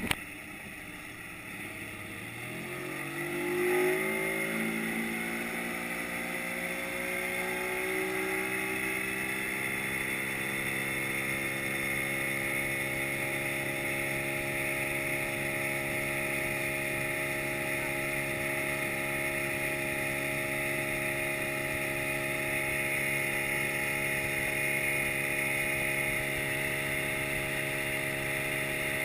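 Yamaha 40 hp outboard motor throttling up, its pitch climbing over the first several seconds as the boat picks up speed, then running steady at speed.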